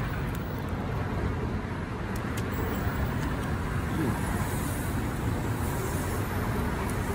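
Steady road traffic noise from passing cars.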